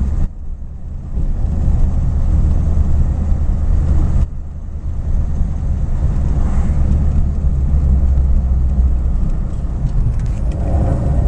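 1953 Cadillac Series 62's 331 V8 running steadily under load in third gear of the dual-range Hydra-Matic, heard from inside the cabin as a low, even rumble. The sound drops briefly twice, just after the start and about four seconds in.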